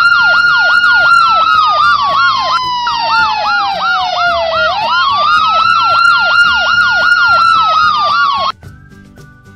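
Ambulance siren: a rapid yelping warble, about four cycles a second, layered over a slower wail that falls in pitch for about four seconds and then rises again. It cuts off suddenly about a second before the end.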